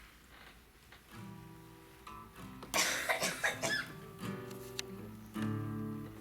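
Acoustic guitar strumming chords, with a loud cough about three seconds in.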